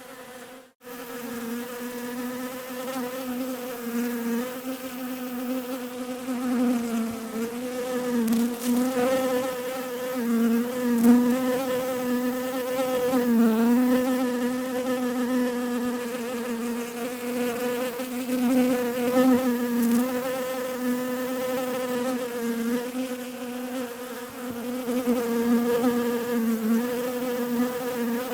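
Bees buzzing in a steady drone whose pitch wavers slightly up and down, with a brief break to silence just under a second in.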